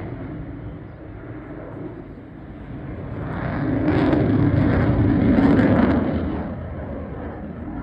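Jet noise from a Eurofighter Typhoon's two Eurojet engines, dipping early, then swelling to its loudest midway and fading again towards the end.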